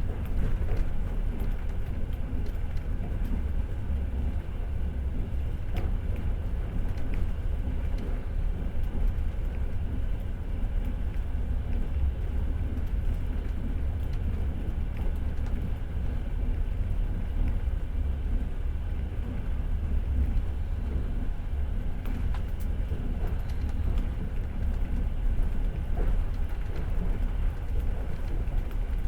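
Long-distance passenger train running on the rails, heard from inside the carriage: a steady low rumble with faint, scattered clicks from the wheels and track.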